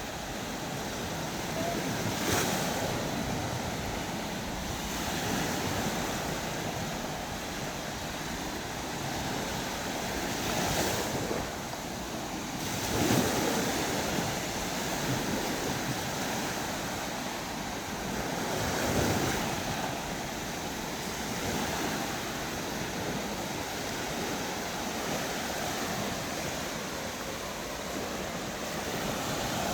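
Sea waves breaking on the shore: a steady wash of surf that swells up every several seconds as a wave comes in, with some wind on the microphone.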